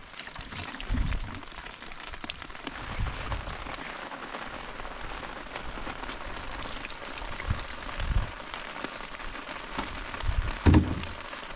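Steady patter of light rain, with occasional dull thumps and water sloshing as dried beans are rinsed in a steel bowl. Near the end comes a louder splash of water poured from a plastic jerrycan into the bowl.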